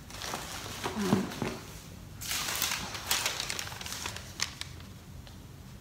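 Rustling and crinkling of things being handled, as of bags or paper, with scattered small clicks and the busiest stretch about two to three seconds in. A short low murmur comes about a second in.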